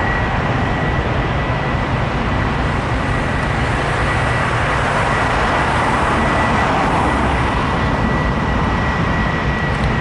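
Twin jet engines of a departing Airbus A300-600 freighter at takeoff power: a steady, loud roar with a high steady tone through it.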